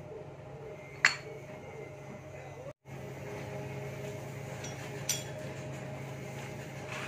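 Sharp metallic clinks of steel CVT pulley parts and hand tools being handled during scooter transmission reassembly: a loud clink about a second in and a lighter one about five seconds in, over a steady low hum.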